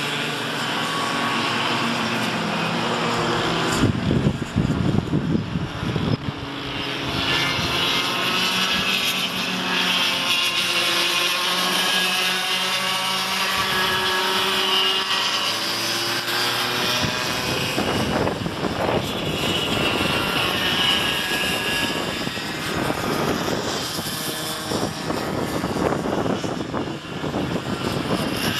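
Several cadet go-karts' small two-stroke engines buzzing as they race past, their pitch rising and falling with the throttle through the corners.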